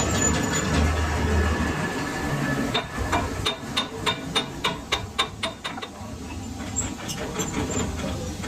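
A workshop machine running steadily, then about three seconds of rapid, evenly spaced hammer blows on metal, roughly four a second, after which the machine noise carries on more quietly.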